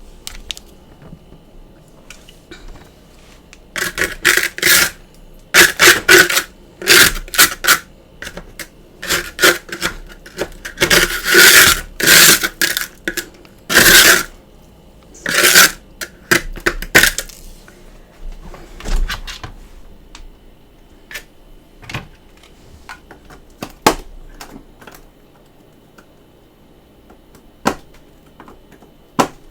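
Freezer frost crunching in loud, irregular crackly bursts for about thirteen seconds, then only a few scattered sharp clicks.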